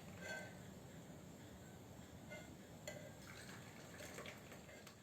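Faint trickling and dripping of hot kadha being strained into cups.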